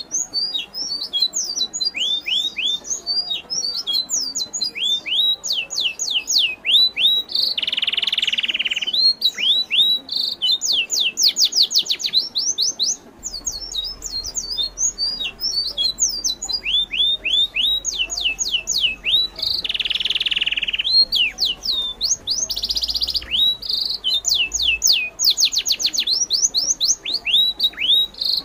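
Birds chirping steadily in dense runs of quick, high, downward-sweeping chirps. Twice there is a short harsh squawk lasting about a second and a half.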